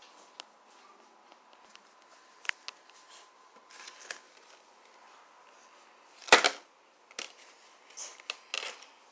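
Scattered light clicks and rustles of things being handled on a table, with one loud crackling rustle about six seconds in and a few more rustles near the end.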